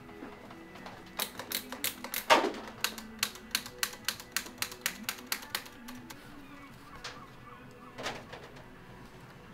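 Bicycle gear shifter clicked repeatedly through the gears: a run of about twenty sharp clicks, about four or five a second, then two single clicks a couple of seconds later, as a freshly fitted shift cable is tried out.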